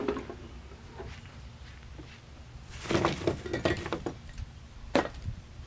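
Clinks and rattles of tools and small parts being handled on a pickup truck's tailgate: a cluster of clatter about three seconds in, then a single sharp click near the end.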